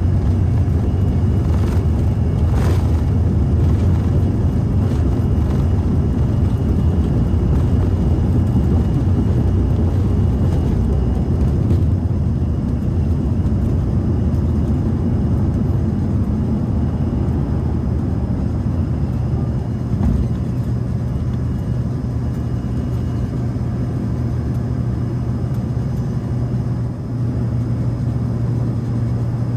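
Cabin noise of an Embraer ERJ-145 taking off: its tail-mounted Rolls-Royce AE 3007 turbofans at takeoff power over the heavy rumble of the runway roll, easing a little about twelve seconds in into steadier climb noise once airborne. A single thump about twenty seconds in.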